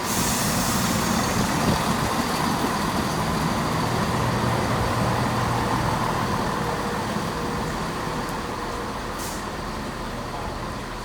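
Diesel engines of a Class 170 Turbostar multiple unit running at the platform, with a hiss of air at the start; the sound slowly fades toward the end.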